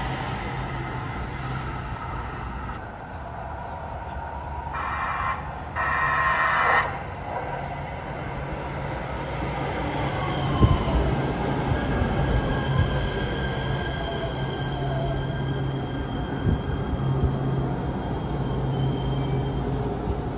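Kinkisharyo P3010 light-rail train pulling into a station and braking to a stop over a steady electrical hum. About five seconds in come two loud pitched blasts, then a falling whine as the motors slow, followed later by a thin high wheel squeal.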